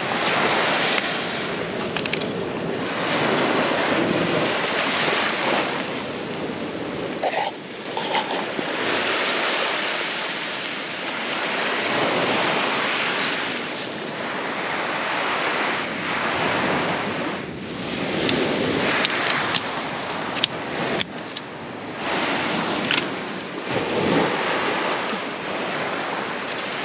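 Small waves washing onto a sandy beach, swelling and easing every few seconds, with wind on the microphone. A few sharp clicks come in the later part.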